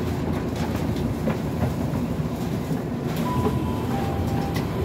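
Tokyu Toyoko Line commuter train heard from inside its cab: a steady low rumble with scattered clicks and knocks, and two brief high tones a little after the middle.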